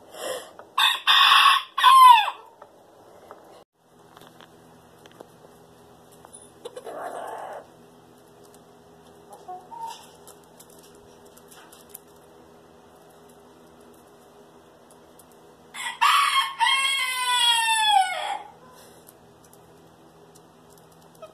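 Rooster crowing twice: a broken-up crow right at the start, then a long crow about 16 seconds in that falls in pitch at its end.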